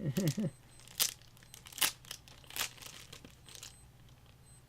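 Sharp plastic clicks and scrapes, four of them about a second apart, as small plastic parts of a PC case are worked at.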